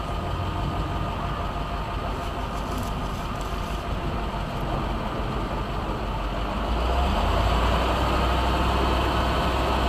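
A heavy machine's engine running steadily with a low rumble, growing louder about seven seconds in.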